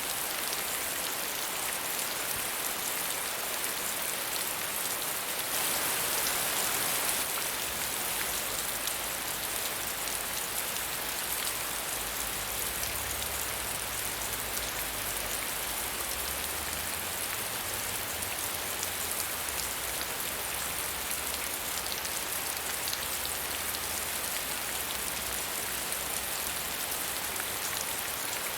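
Steady medium rain falling and pattering on surfaces, an even hiss of many drops, swelling briefly louder about six seconds in.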